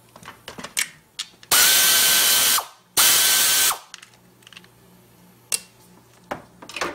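Pneumatic air ratchet running in two bursts of about a second each, a loud hiss with a steady whine, backing out the wiring-harness bolts on the engine. Light clicks and taps of tool and bolts before and after the bursts.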